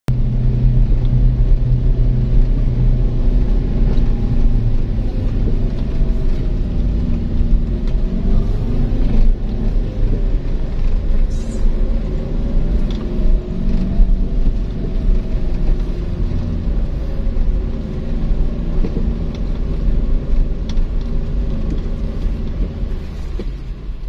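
Car driving uphill, heard from inside the cabin: a heavy, steady rumble of engine and road noise, the engine note rising and falling a little.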